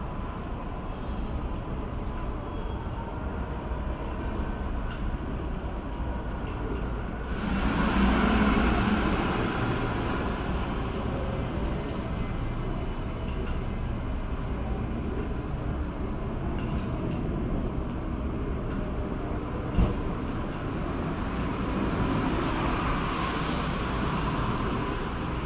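Steady distant rumble of a jet airliner's engines, swelling for a couple of seconds about eight seconds in, with one sharp click near twenty seconds.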